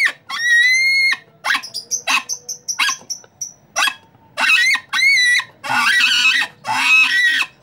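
Handmade PVC wild boar call blown with its front end covered, giving high, wavering pig-like squeals: a long squeal, a quick run of short chirps, then four more squeals in the second half.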